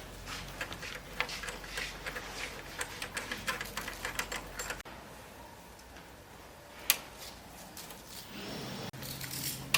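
Rapid, irregular clicking and tapping for about five seconds, then an abrupt change to a quieter stretch with a single sharp click and a low steady hum starting near the end.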